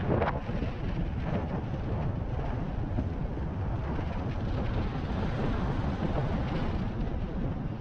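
Wind buffeting the microphone of a rider on an electric unicycle, a steady rumbling rush with a louder gust right at the start.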